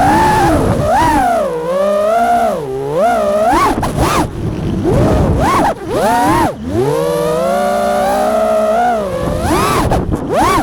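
FPV quadcopter's brushless motors whining, their pitch sweeping up and down again and again with the throttle, with a couple of brief dips where the throttle is cut.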